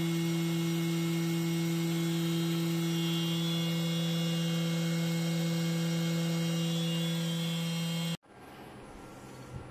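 DIY CNC milling machine's spindle running steadily at 10,000 RPM, a loud even hum with a high whine above it. It cuts off abruptly about eight seconds in, leaving only faint room noise.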